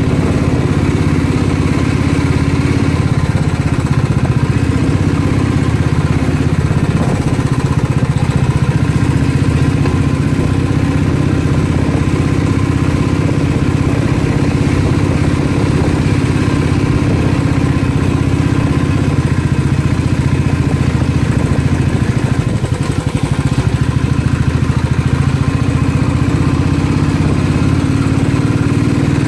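Motorcycle engine running steadily while riding, its pitch dipping and rising a little as the rider works the throttle.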